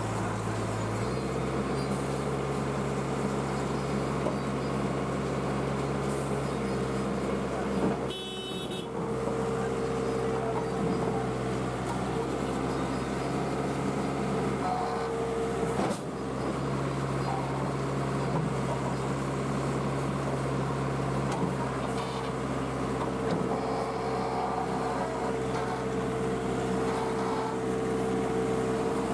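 Heavy diesel engine of a backhoe loader running steadily under load while it digs, with a brief high-pitched tone about eight seconds in.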